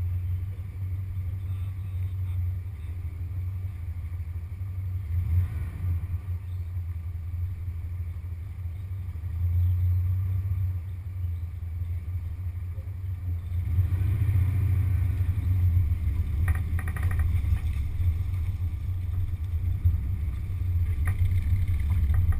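1974 VW Beetle's 1600cc air-cooled flat-four engine idling, then running harder about two-thirds of the way through as the car drives off.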